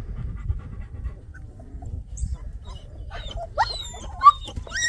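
A dog whining: after a few seconds, a quick run of high, sliding whimpers that rise and fall, one louder yelp among them.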